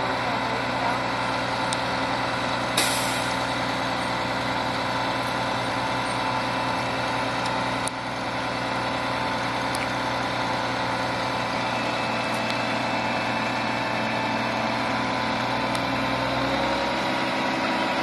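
A boom truck's diesel engine runs steadily, a constant drone, with a brief sharp noise about three seconds in. The engine note shifts near the end.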